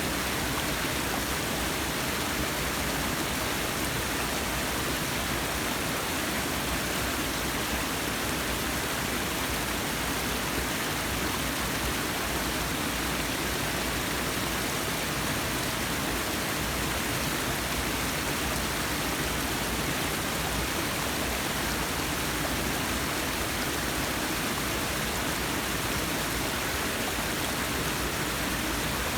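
Forest waterfall: water falling and rushing in a steady, even roar of white noise.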